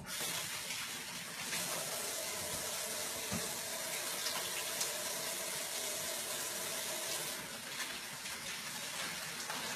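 Kitchen sink tap running steadily while hands are washed under it.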